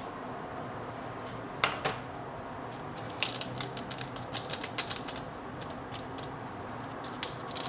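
Dried chili and its parchment-paper tray liner being handled with the fingers, giving sharp, irregular crackles and clicks like typing, thickest in the middle of the stretch, over a steady low hum.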